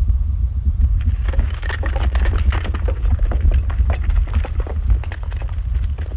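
A loud, steady low rumble with irregular clicks and knocks over it, growing busier about a second in.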